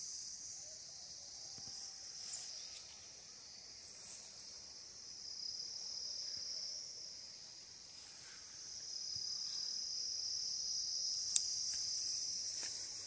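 Steady high-pitched chorus of insects, swelling and fading in loudness, with a single sharp click about eleven seconds in.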